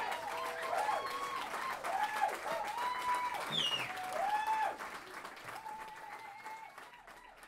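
A club audience applauding, with cheering voices calling out over the clapping. The applause dies away over the last few seconds.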